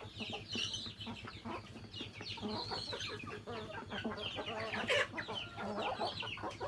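Village chickens clucking, with many short, high calls falling quickly in pitch and a sharp click about five seconds in.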